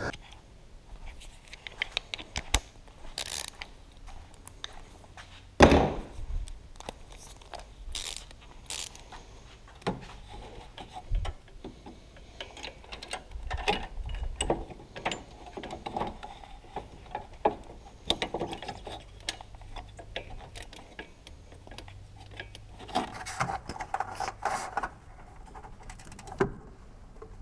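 Metal hand tools clinking and a socket ratchet clicking as they are worked onto a car's belt tensioner bolt, in irregular bursts with a sharp knock about six seconds in.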